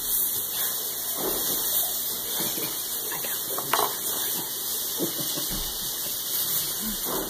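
Steady hiss, with a light click a little under four seconds in.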